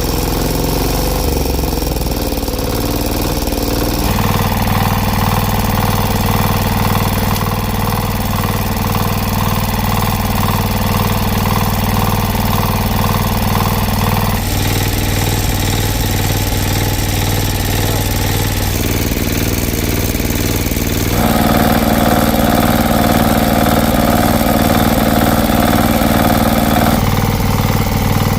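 An engine running steadily. Its tone changes abruptly a few times, about 4, 14, 19, 21 and 27 seconds in.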